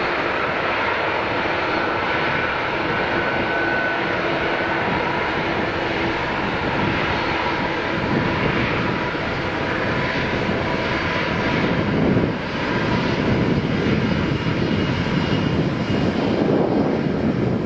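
Airbus A380-800 jet engines running as the airliner rolls along the runway: a steady roar with a faint high whine, growing deeper and louder about two-thirds of the way through.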